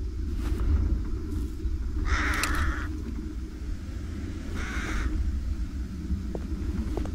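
Steady low ambient rumble, with two short harsh sounds over it: a longer one about two seconds in and a briefer one near five seconds.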